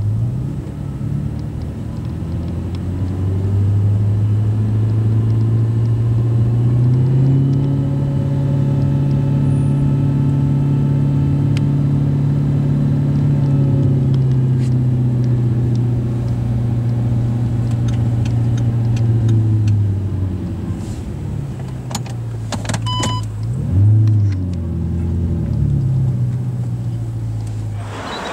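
Audi R8 engine through an Armytrix F1 aftermarket exhaust, heard from inside the cabin, running at low revs while the car crawls along. The note rises a little and holds, eases back, and a short throttle blip rises and falls a few seconds before the end.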